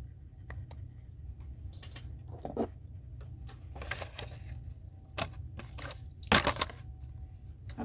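Scattered clicks, taps and short crinkles of plastic blister packaging and card being handled, over a low steady hum.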